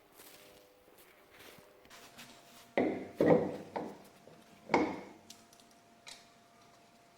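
Four sharp metallic clanks with short ringing, spread over about two seconds near the middle, from tools or steel car parts being handled during drop-link work.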